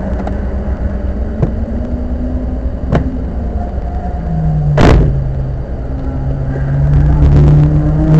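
Car being driven, engine and road rumble with a sharp click three times, every second and a half to two seconds, the one about five seconds in the loudest: the abnormal noise coming from the car. Near the end the engine note rises as the car speeds up.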